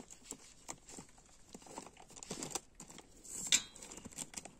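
Faint rustling and light clicks of things being handled, with one louder crinkle about three and a half seconds in.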